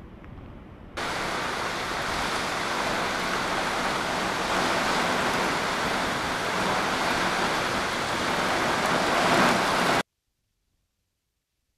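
Heavy typhoon rain with wind, a loud, steady hiss that starts suddenly about a second in, after fainter storm noise, and cuts off abruptly near the end.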